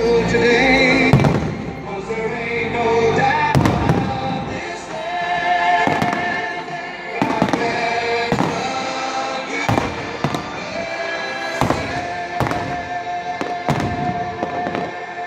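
Aerial firework shells bursting in sharp bangs at irregular intervals, about one a second, over music playing the whole time.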